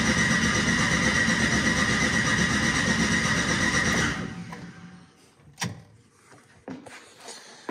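Starter cranking the turbocharged 5.3-litre L33 V8 of an SN95 Mustang, with a steady whine, for about four seconds without the engine catching; it winds down and a few sharp clicks follow. The owner suspects the ignition coils are plugged in wrong.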